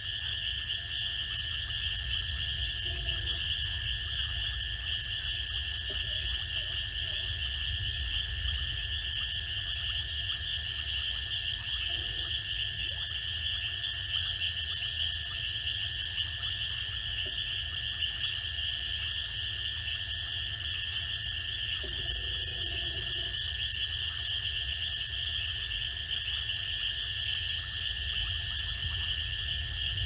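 Steady night chorus of insects and frogs: several unbroken high-pitched trills at once, with short chirps scattered over them and a few brief lower calls.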